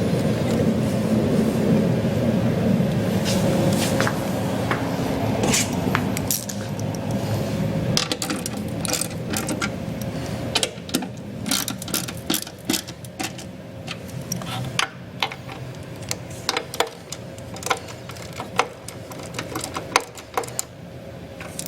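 Wrench and bolt hardware tightening the backrest bracket's 7/16 bolts. A steady mechanical running sound lasts about the first six seconds, then gives way to many sharp, irregularly spaced metallic clicks and clinks.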